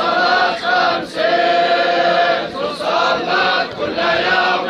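A group of men chanting devotional praise of the Prophet together without instruments, in long held phrases with short breaks between them.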